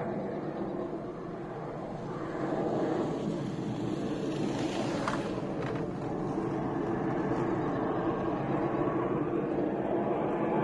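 Distant Su-30MKI fighter jet's twin AL-31FP turbofan engines, heard from the ground as a steady jet noise while the aircraft manoeuvres high overhead.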